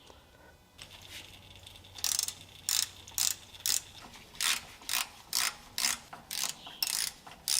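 Ratchet wrench clicking in short, quick strokes, about two a second, starting about two seconds in: the bolts on the small sump of the backhoe's shuttle transmission being backed out.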